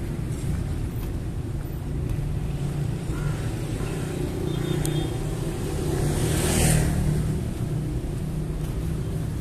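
A motorcycle passing close by, its sound swelling to a peak about two-thirds of the way in and then fading, over a steady low rumble.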